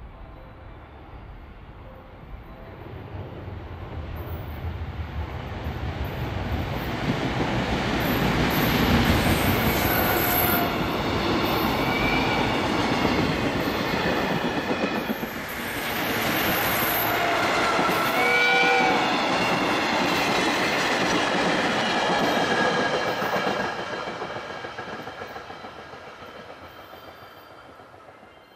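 Freight train passing at speed, an EF200 electric locomotive followed by container flat wagons, the wheels running over the rails: it grows louder as it approaches, stays loud for about fifteen seconds while the wagons go by, then fades as it draws away. A couple of brief high squeals come partway through.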